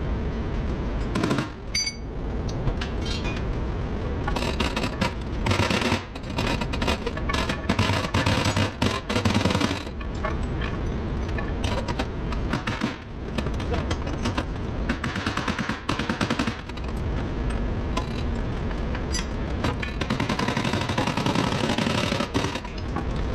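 Runs of rapid sharp knocks and clatter from tool work on the car's body, with music playing.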